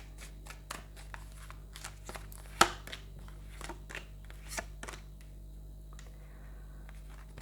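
Tarot cards being drawn and laid out on a table: scattered soft taps and slaps of card stock, with one sharper snap about two and a half seconds in, over a steady low hum.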